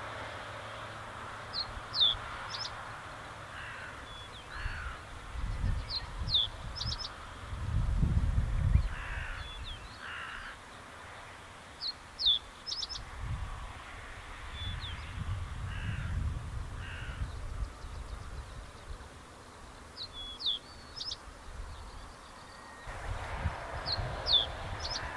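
Common reed bunting singing: a short phrase of a couple of sharp down-slurred notes and a quick burst of ticks, repeated five times several seconds apart. Low gusty rumbles and rougher, lower calls come and go underneath.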